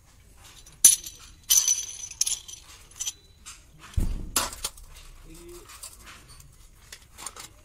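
Stainless-steel parts of a hand-cranked dough press clinking and knocking as the screw plunger is fitted onto the dough-filled cylinder and turned over a steel plate. Sharp clinks about one to two seconds in, a heavier knock about four seconds in, then lighter ticks.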